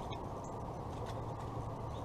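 A steady low hum with a few faint, short clicks about half a second to a second apart: a finch pecking at seed in a clear acrylic window feeder.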